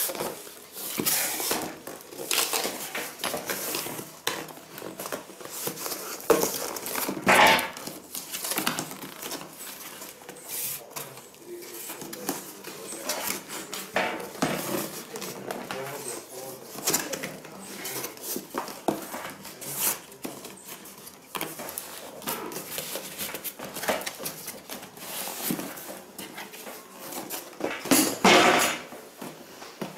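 Cardboard boxes being handled by hand: flaps rustling and scraping as a boxed mixer grinder is worked out of its shipping carton, with irregular clicks and a few louder knocks, the loudest about seven seconds in and near the end.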